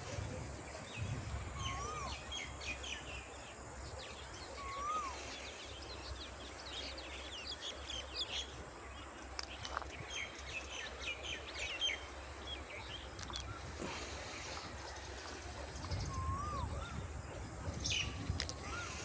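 Wild birds chirping and calling: many quick high chirps, and a short up-and-down call repeated a few times, with a low rumble underneath.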